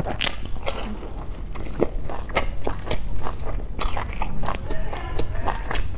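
Close-miked biting and chewing of a pan-fried Chinese chive pocket, its crisp fried crust crunching in many sharp, irregular crackles.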